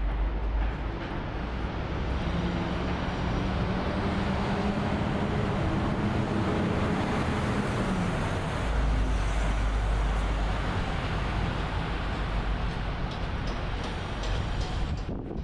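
City street traffic noise. A passing vehicle's engine hums steadily for several seconds and drops slightly in pitch as it goes. Low wind rumbles on the microphone come near the start and again midway.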